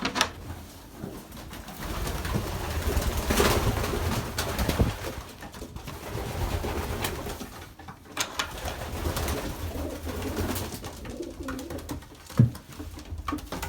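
Racing pigeons cooing in the breeding loft, with a few short knocks, the sharpest near the end.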